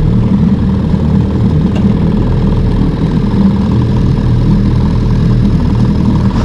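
Small boat's engine idling steadily, a low even hum.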